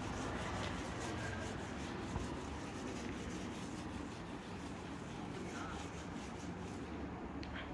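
Whiteboard duster wiping marker off a whiteboard: faint, quickly repeated rubbing strokes that ease off near the end.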